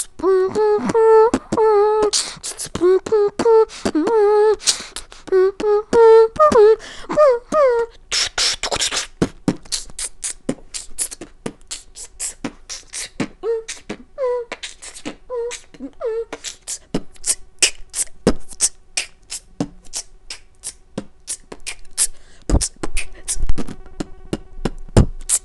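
Solo beatboxing. For the first eight seconds or so a hummed melody runs over mouth-made clicks and snares. After that come fast, even hi-hat-like clicks and snares, with a few short hummed notes, then deep kick-drum hits near the end.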